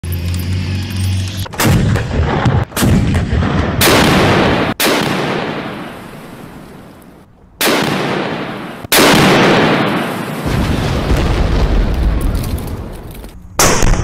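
A vehicle engine running low and steady for a second or so, then heavy gun shots from a German 88 mm Flak gun, about seven in all at uneven spacing, each a sharp blast followed by a long echoing decay.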